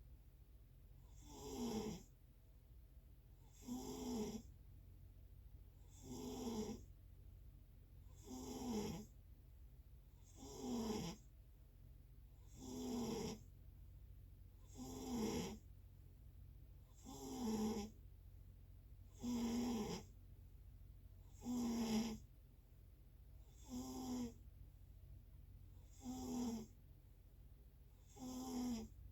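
Snoring in a steady rhythm: a short snore about every two seconds, each with a slightly falling tone, over a constant low hum.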